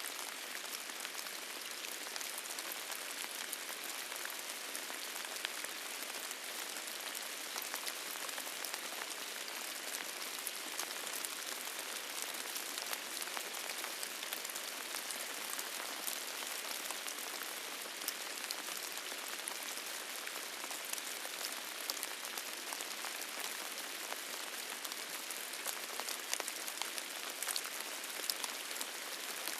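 Steady rain: an even hiss with many separate sharp drop ticks, without a break.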